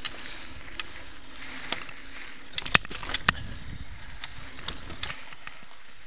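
Mountain bike riding over a dirt trail: steady rumble of tyres on dirt, with scattered sharp knocks and rattles from the bike over bumps, the loudest three close together about halfway through.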